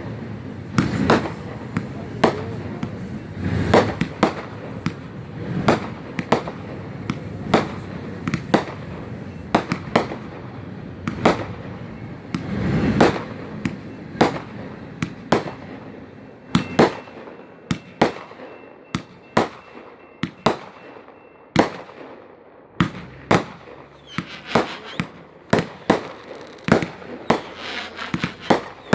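Fireworks going off in a long series of sharp bangs, about one or two a second. There are some deeper booms in the first half, and crisper cracks come faster near the end.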